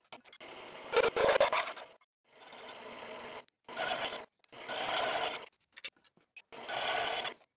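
Milling machine cutting a steel plate, heard in short clips that stop abruptly: the spindle running and the drill or cutter chewing through the steel. About a second in there is a louder metallic clatter.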